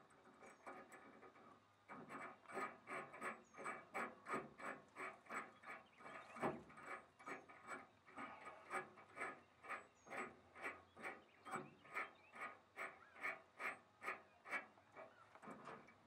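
A nut being tightened onto a bolt with a wrench from under a pickup bed: a long run of short, faint rasping strokes, about three a second, with one louder knock about six seconds in.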